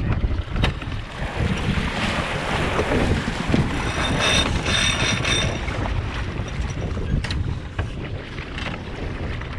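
Wind buffeting the microphone and water rushing along the hull of an Impulse 26 sailboat under way, with a few sharp clicks and a brief high ringing sound about four seconds in that lasts a second or so.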